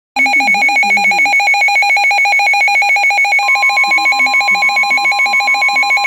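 Midland weather alert radio sounding its loud warbling alert alarm, two tones alternating several times a second, for a severe thunderstorm warning. About halfway through, a steady single tone joins underneath: the broadcast's 1050 Hz warning alert tone coming through the radio.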